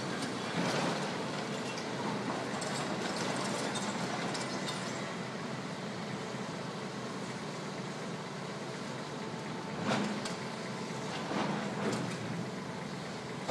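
Tracked excavators working in rubble: a steady diesel engine rumble with scattered clanks and knocks from the bucket and debris, the sharpest about ten seconds in.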